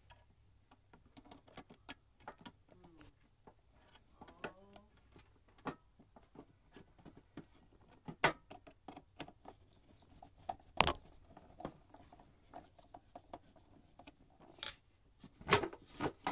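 Scattered light clicks and knocks of an electric hot-water pot's parts being handled and fitted together during reassembly, with a few sharper clacks about eleven seconds in and again near the end.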